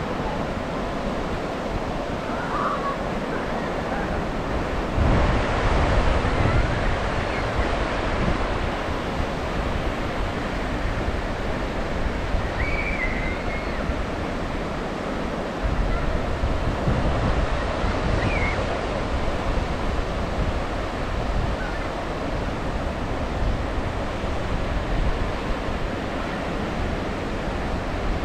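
Ocean surf washing onto a beach: a steady rush of breaking waves, swelling louder about five seconds in and again just past the middle.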